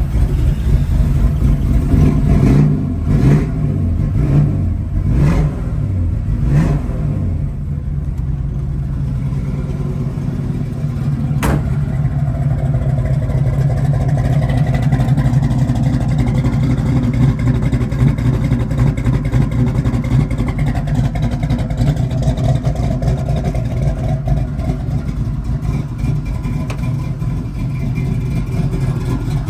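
Fuel-injected 347 cubic-inch small-block Ford V8 in a 1965 Mustang fastback, revved in several quick blips and then settling back to a steady idle.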